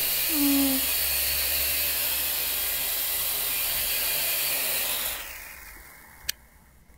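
J Perkins Twister quadcopter's small electric motors and propellers whirring at close range, then winding down and stopping about five seconds in. A single sharp click follows.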